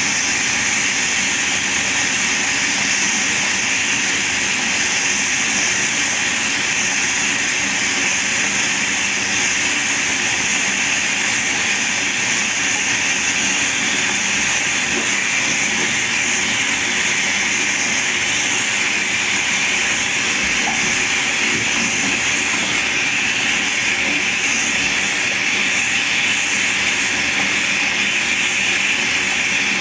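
Water from a bath tap pouring into a filling bathtub, a steady rushing hiss that doesn't change.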